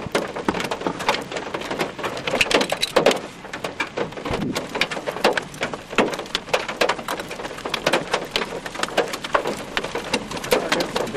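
Rain falling during a thunderstorm, heard as a dense run of sharp, irregular drop hits close by.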